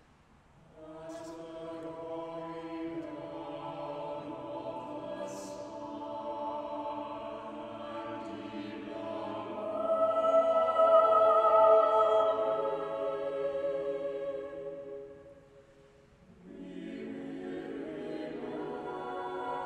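A choir singing slowly in long held phrases. It swells loudest about ten seconds in, breaks off briefly around sixteen seconds, then begins a new phrase.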